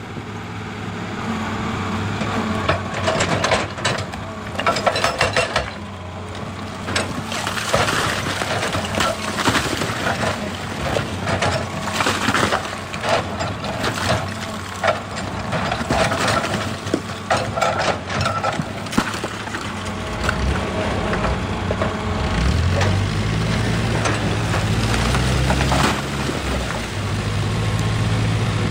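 Excavator working rock: frequent clattering knocks and scraping of stone against the steel bucket over the running diesel engine. About two-thirds of the way in the engine grows louder and steadier while the knocks thin out.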